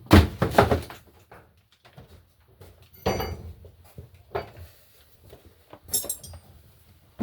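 A series of separate clanks and knocks of hard objects being handled and set down. The loudest cluster comes just after the start, and the strikes about three and six seconds in ring with a metallic edge.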